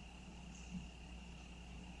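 Crickets trilling in one steady, continuous high note, faint, over a low background rumble. A brief soft low knock comes just under a second in.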